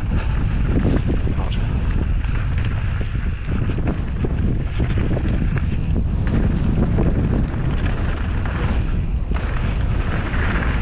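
Wind buffeting the microphone of a mountain bike riding fast down a dry dirt singletrack, over a steady rumble of tyres on the trail and frequent small clicks and rattles from the bike.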